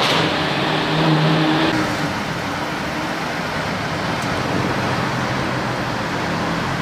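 1955 Mercedes-Benz Ponton 220A's straight-six engine running as the car drives past, over road and traffic noise. The sound changes abruptly a little under two seconds in.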